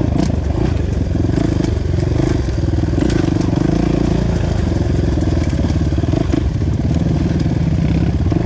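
Off-road dirt bike engine running steadily at moderate revs, heard from on board the bike as it rides a forest trail, with a few faint clicks.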